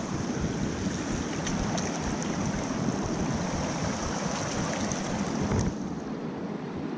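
Steady rush of a shallow, rocky river's current, easing slightly near the end.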